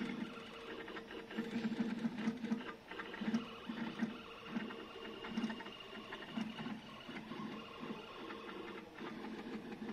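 Small electric motors whirring in short, irregular spurts over a steady hum, with light clicking throughout.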